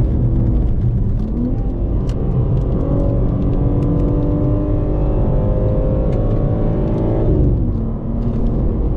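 BMW M3 Competition (G80) with its twin-turbo straight-six, heard from inside the cabin on a brake cool-down lap: the engine's pitch rises about a second and a half in, holds steady, then drops about seven seconds in as the car eases off.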